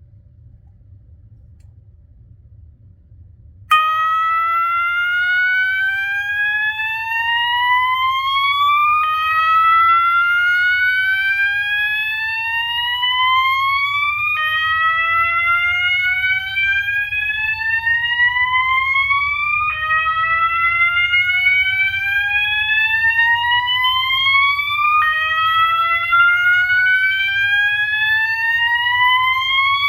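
System Sensor MASS2475ADA fire alarm sounder switching on a few seconds in and sounding a slow whoop tone. Each sweep rises steadily for about five seconds, then drops back and starts again.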